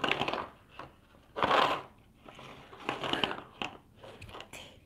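Handling noise: a few short bursts of rustling and crinkling with small clicks, the loudest about one and a half seconds in.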